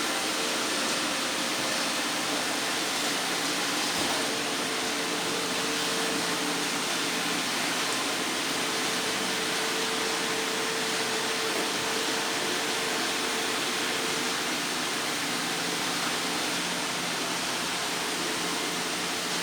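Several robot vacuum cleaners running together, a steady whir of suction motors and brushes with a faint constant hum.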